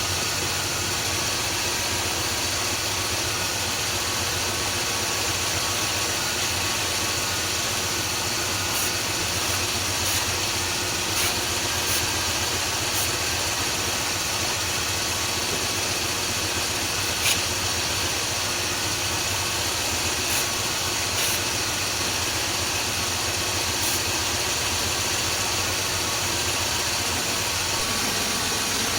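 Chrysler 360 V8 idling steadily, with a few short sharp clicks scattered over it.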